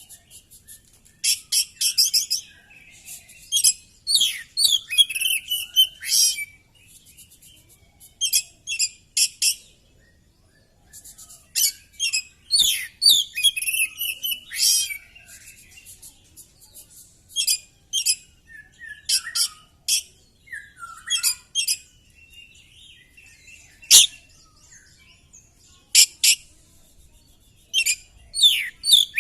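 Oriental magpie-robin singing in full, agitated song: bursts of rapid, high-pitched whistles, trills and harsh clicking notes, pouring out its repertoire of mimicked phrases, with short pauses between bursts and a longer pause about ten seconds in.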